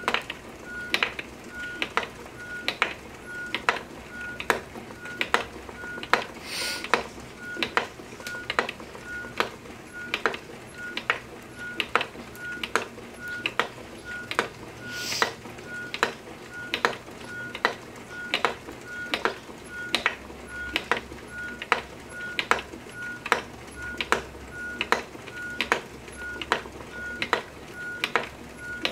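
Wooden spinning wheel being treadled steadily: an even rhythm of clicks or knocks, about three every two seconds, with a short high squeak recurring regularly, and two brief swishes about 7 and 15 seconds in.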